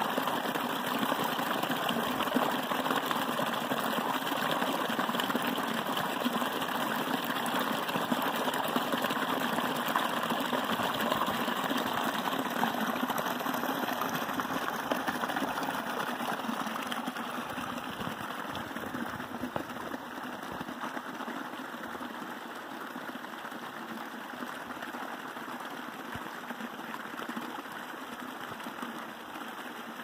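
Small mountain creek pouring over a short drop into a shallow pool: a steady rush and splash of water, growing quieter from about halfway through.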